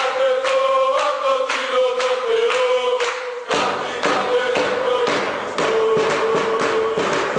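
Music track of many voices singing a chant together over a beat. The low end is thin at first and comes back in suddenly about three and a half seconds in.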